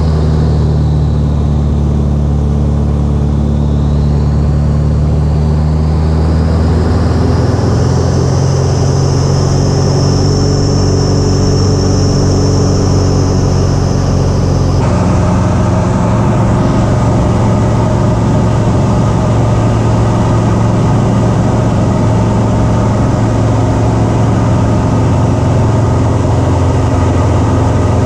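Light aircraft piston engine and propeller running steadily, recorded by a camera on the airframe, with wind rush. The engine note steps up about a quarter of the way through, and a high whine rises and fades in the first half. About halfway the sound changes abruptly to a different engine note as the recording switches to the other aircraft's camera.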